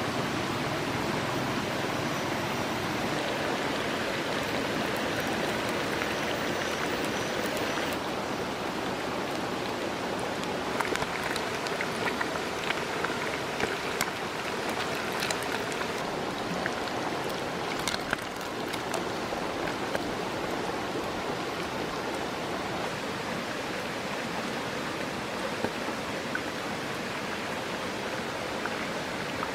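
Steady rushing of a rocky stream, with a run of sharp clicks partway through.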